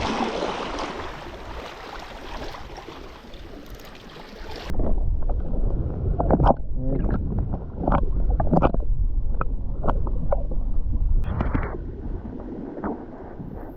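Wind buffeting the microphone over sea water sloshing. About a third of the way in the sound changes suddenly to a louder, deeper rumble broken by irregular knocks.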